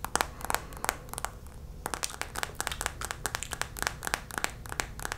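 Fast tapping of long fingernails on a plastic lip gloss squeeze tube: quick, uneven sharp taps close to the microphone.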